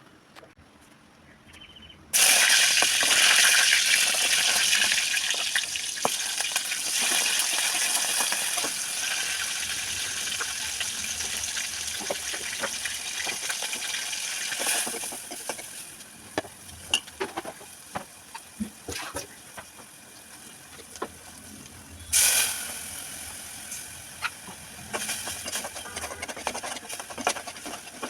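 Vegetables going into hot oil in a pan: a sudden loud sizzle about two seconds in that slowly dies down, with scattered clicks of stirring against the pan, and another short loud sizzle about 22 seconds in.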